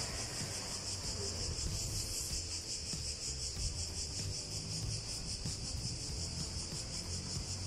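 Cicadas buzzing: a steady, shrill, high drone with a fast even pulse, over a low rumble.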